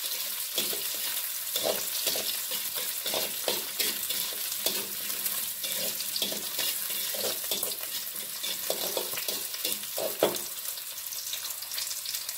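Sliced sausage and onion sizzling in a large metal wok as they are stir-fried. A metal spatula scrapes and knocks irregularly against the wok over a steady frying hiss.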